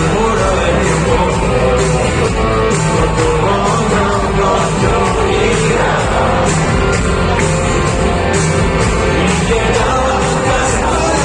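Live rock band playing a song with a lead singer, guitars and drums, heard loud in a concert hall.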